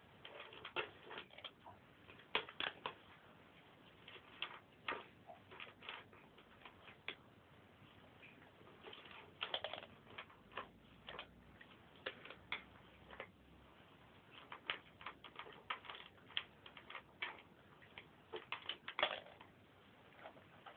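Two cats eating from one shared food bowl: faint, irregular small clicks and crunches of chewing and of the food in the bowl.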